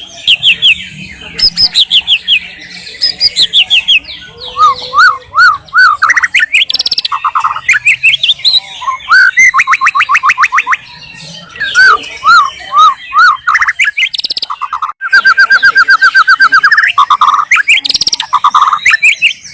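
White-rumped shama singing a loud, varied song. Its phrases mix fast trills, runs of repeated rising-and-falling notes and clear whistles, with short pauses between phrases.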